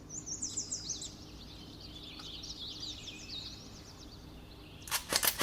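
Small birds chirping, a flurry of quick high chirps that fades after about three seconds. Near the end a quick run of sharp clicks starts.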